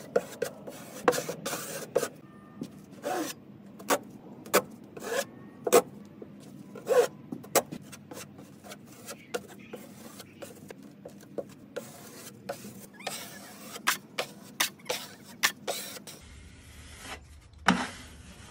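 Metal drywall knife scraping wet joint compound across a drywall patch, in a run of short, irregular strokes.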